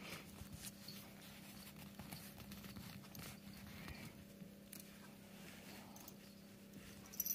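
Faint soft clicks and rustles of a cat gnawing on a thin stick, over a low steady hum, with a short cluster of louder clicks near the end.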